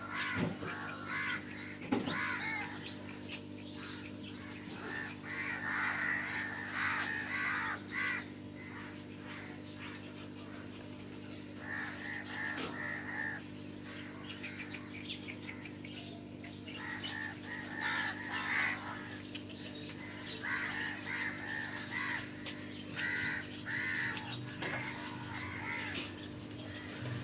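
Short harsh animal calls in clusters of several every few seconds, over a steady low hum.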